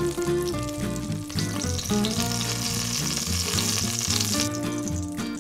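Bacon grease sizzling as it melts in a hot cast iron Dutch oven, the hiss strongest from about a second and a half in until near the end, over background music.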